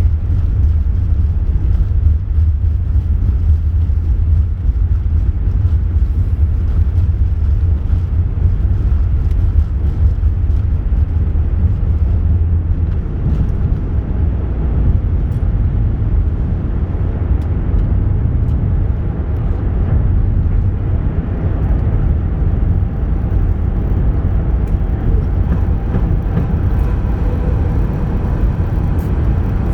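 Steady, deep rumble of an Airbus A380's Rolls-Royce Trent 900 engines and the rushing air, heard inside the passenger cabin with the aircraft under power.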